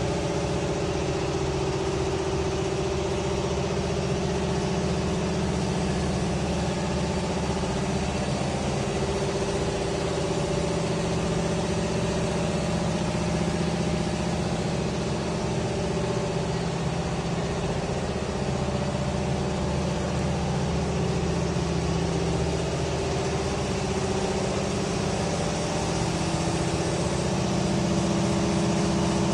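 Diesel engine of a 6–8 ton excavator running steadily, its pitch shifting a little now and then as the hydraulics load it.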